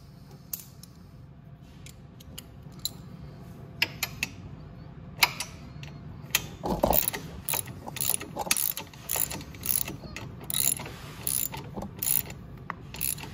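Ratchet wrench clicking in repeated short strokes as the last exhaust bolt is tightened: a few scattered clicks at first, then steady back-and-forth strokes from about five seconds in.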